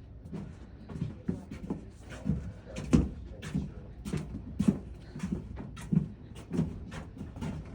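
Footsteps climbing stairs inside a tower: a regular series of dull thuds, about one every two-thirds of a second.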